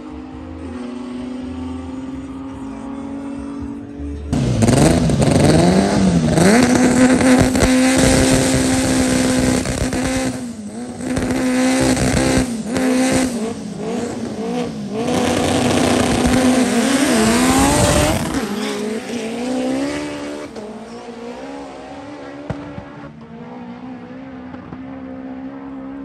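Drag-race car's engine revving hard. About four seconds in, the pitch bounces up and down, then holds high with a few short dips for some fourteen seconds before dropping back to a steady drone.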